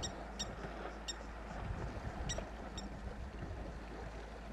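Blacksmith lapwings calling: about five short, sharp, high-pitched notes at irregular intervals, over a steady low rumble.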